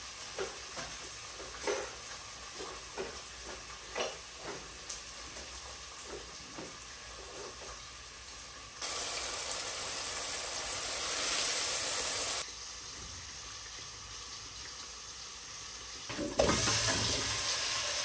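Food frying in a pot with a steady low sizzle and scattered light knocks of a spoon stirring. About nine seconds in, a louder rushing hiss starts and cuts off suddenly some three and a half seconds later, and another loud rush begins near the end.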